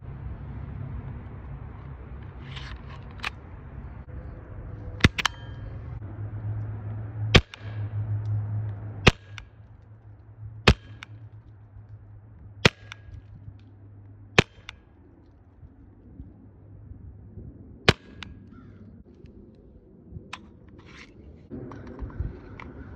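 Mercury Rise MUB 50 CO2 pistol firing 2.7-gram rubber-and-steel riot balls: about seven sharp shots, spaced one and a half to three and a half seconds apart.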